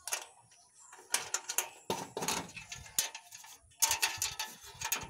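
Galvanized sheet-metal rabbit hutch door being unlatched and pulled open: an irregular run of metal clanks, rattles and short scrapes.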